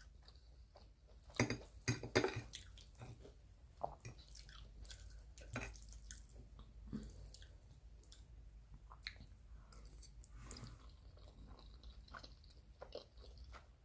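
Close-miked chewing of spaghetti: soft wet mouth sounds and smacks, busiest about one and a half to two and a half seconds in.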